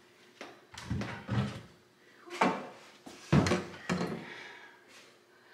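A long loose wooden wall board knocking and bumping against wood paneling and the floor as it is shifted and stood on end, about six wooden knocks with the loudest near the middle.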